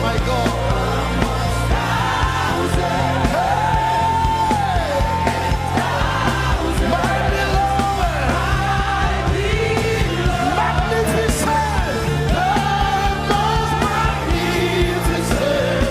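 Live gospel praise and worship: voices singing and calling out over a band with steady bass notes.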